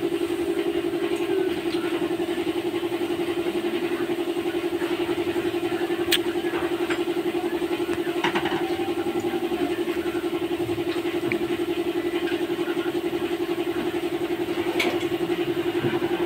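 An engine idling steadily, with a fast even pulse to its hum, and a couple of light metallic clicks.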